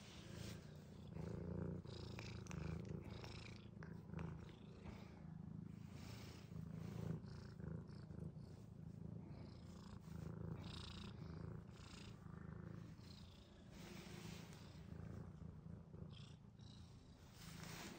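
Cat purring steadily, a low, pulsing purr, with short scratchy rustles now and then.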